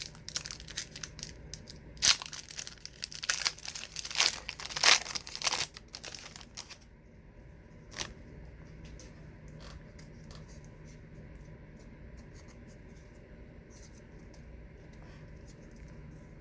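Wax trading-card pack wrapper being torn open and crinkled, busy and crackling for about the first seven seconds. After that it goes quiet, with only a few faint clicks of cards being handled.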